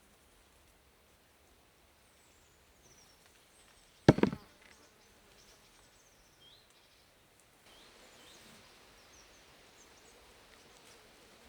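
A single sharp knock on wood about four seconds in, like a hatchet or stick striking a log, ringing briefly. Faint bird chirps sound behind it.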